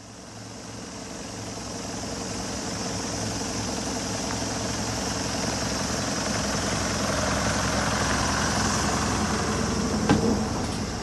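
Nissan Civilian minibus's diesel engine idling steadily, with a steady hiss over it. There is a sharp knock near the end.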